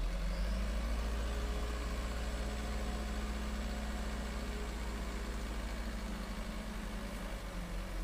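Diesel engine of a light dump truck running steadily while its tipper bed is raised to dump soil.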